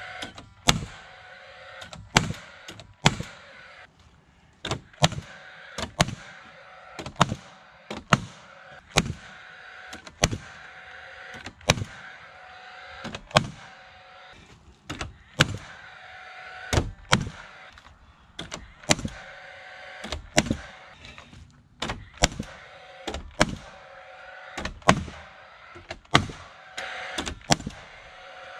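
Hammer driving nails into wooden framing: a long run of sharp blows, about one or two a second, with short pauses between runs.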